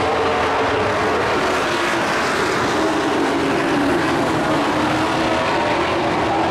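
A pack of dirt-track race trucks at racing speed: several engines running hard at once, their overlapping notes drifting up and down in pitch as the trucks go through the turn.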